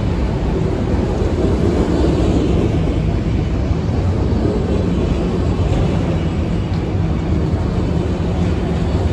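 Freight train cars, mostly autoracks, rolling past close by: a steady rumble of steel wheels on the rails.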